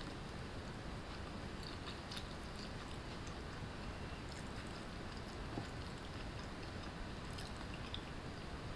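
Wooden chopsticks clicking and scraping lightly against a ceramic bowl while leftover vegetables are gathered, a few scattered soft ticks over a steady background hiss.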